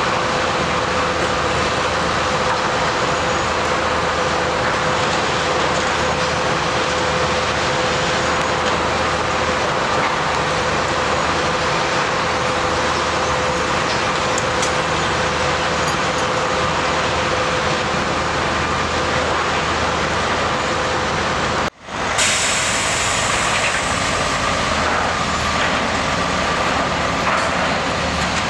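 Heavy diesel log truck's engine running steadily as it pulls slowly forward, with a steady whine over it. About three-quarters of the way through the sound drops out for an instant, then a similar steady engine noise resumes with a higher whine.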